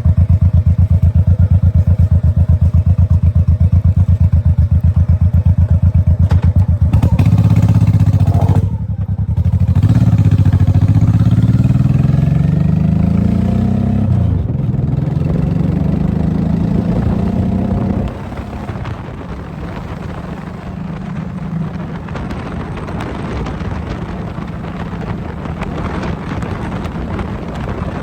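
Motorcycle engine idling with an even, pulsing beat, then pulling away. Its pitch rises, drops sharply at a gear change about 14 seconds in, and rises again. After about 18 seconds it settles into a steadier, quieter run, with wind on the microphone.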